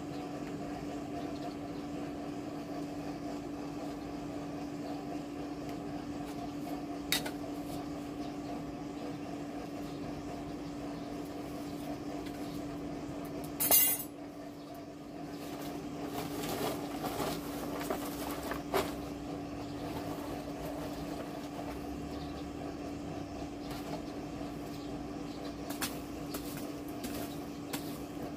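Electric forge blower running with a steady hum, feeding air to the charcoal fire. Over it come occasional clinks and scrapes of metal, with one loud clatter about halfway through.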